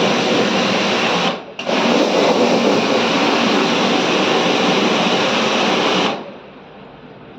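Water jet spraying on an air conditioner during a wash-down cleaning, a steady hiss that breaks off for a moment about a second and a half in, then stops about six seconds in.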